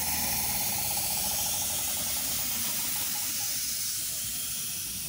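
Manx Electric Railway winter saloon tramcar No. 19 (1899) rolling past at low speed. A steady high hiss runs throughout and slowly eases, while the car's low hum and whine die away in the first couple of seconds.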